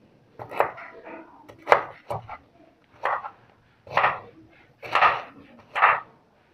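Knife chopping on a cutting board, hard strokes at a steady pace of about one a second.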